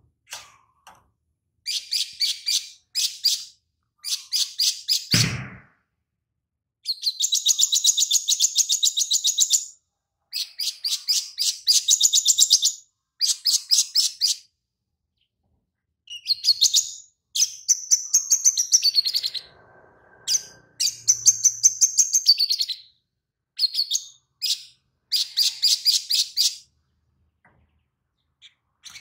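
Male olive-backed sunbird (sogon) singing, with learned lovebird-style phrases in its song. It gives quick high trills and chatters in bursts of one to three seconds, with short pauses between.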